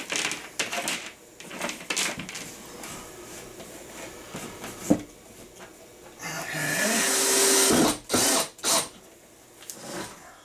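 Cordless drill-driver driving screws to fasten a metal transfer switch box into the wall: one run of about a second and a half about six seconds in that spins up to a steady whine, then two short bursts. Before it, clicks and rattles of the box being handled and pressed into place.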